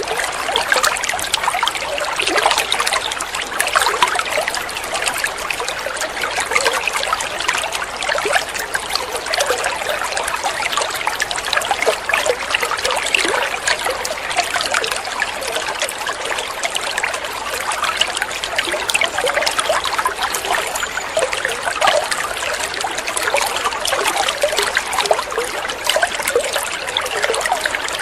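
Running water trickling and splashing steadily, a constant bubbling flow without pause.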